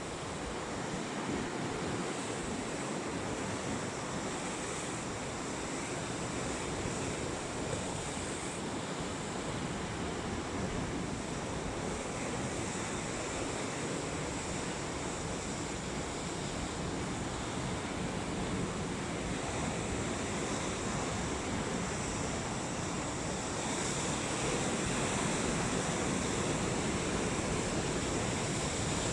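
Sea waves washing onto the shore in a steady surf, with some wind, growing a little louder near the end.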